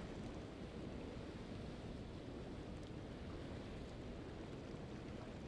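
Steady rushing of wind and water past a boat under way at sea.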